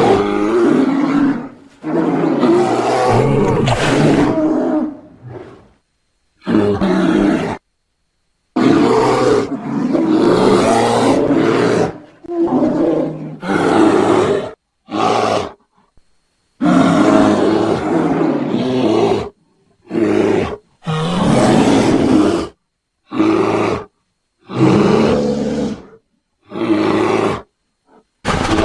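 A series of bear roars and growls: about a dozen separate deep, rough calls, each lasting one to four seconds, separated by short stretches of silence.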